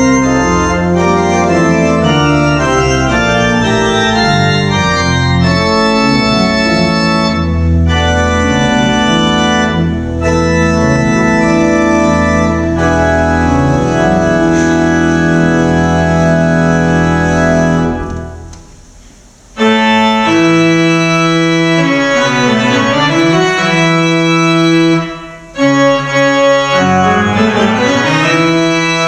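Church organ playing a loud hymn-tune arrangement in full sustained chords over a pedal bass. The music breaks off briefly about two-thirds of the way through, then resumes with a low line that runs down and climbs back up twice.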